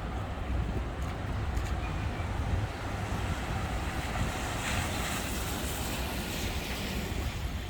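Street traffic on wet roads: a steady low rumble, with a rush of tyre hiss that swells for a few seconds about halfway through as a vehicle passes.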